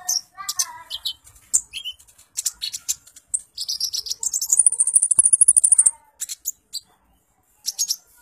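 Kolibri ninja sunbird singing a fast, chattering song of very high, thin notes, with some lower warbled phrases at the start and a long high trill in the middle. It pauses briefly near the end, then gives a short burst of notes.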